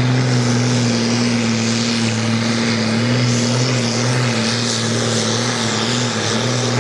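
Ford farm tractor's diesel engine running hard at a steady pitch under full load as it drags a weight-transfer pulling sled. The pitch wavers slightly and dips briefly near the end.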